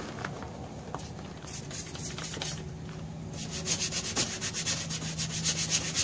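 A stiff plastic scrub brush scrubbing a wet, soapy vinyl golf-cart seat. The quick back-and-forth strokes are sparse at first, then become a fast, even scrubbing rhythm about halfway through.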